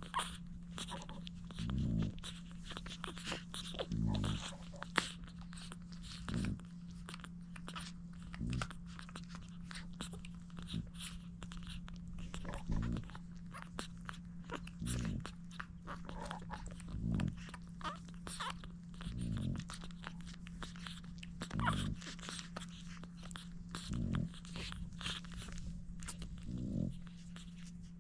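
Newborn French bulldog puppies suckling at their mother's teats: many quick wet smacks and clicks, over a low sound that comes about every two seconds and a steady low hum.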